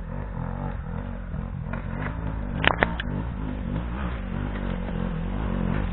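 Trail dirt-bike engine running low and unevenly, with two sharp clicks close by about two and a half seconds in.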